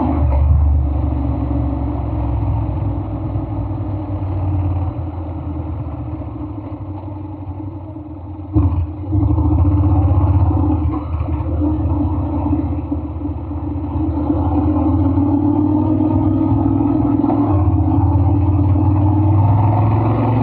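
Honda Forza 750's 745 cc parallel-twin engine running, its low steady note rising and falling in loudness, with a sudden change about eight and a half seconds in.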